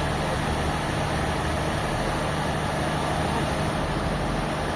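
Sawmill machinery running steadily: a continuous mechanical drone with an even low hum, no separate strikes or changes.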